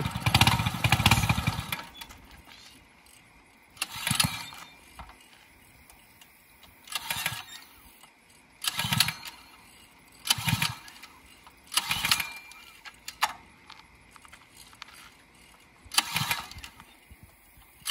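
Coleman CT100U mini bike's small engine being pull-started over and over, about seven pulls, the first the loudest. Each pull turns the engine over briefly with a rattling whir, and it does not catch. The choke is on for its first cold start.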